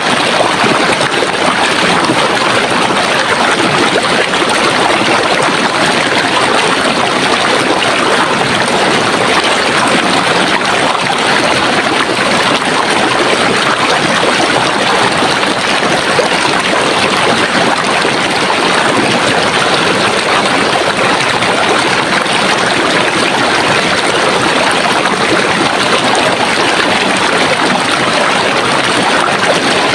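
Running water of a stream or brook flowing steadily, an even, unbroken rush with no changes.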